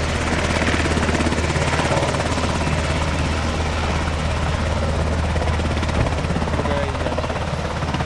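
Sikorsky VH-60N WhiteHawk helicopter running steadily in flight: its twin turboshaft engines and rotors make a constant loud drone with a fast, even rotor beat.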